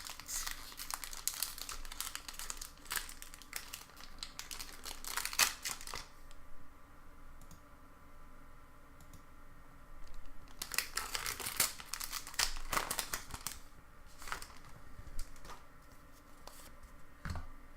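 Foil wrapper of a Pokémon booster pack crinkling and tearing as it is opened, in two bouts with a lull of a few seconds between.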